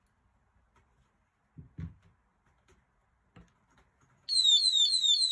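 A few soft handling knocks, then about four seconds in the HeyShow PSD107 phone display stand's built-in anti-theft alarm goes off loudly. It is a high-pitched electronic siren of rapid falling sweeps, about four or five a second.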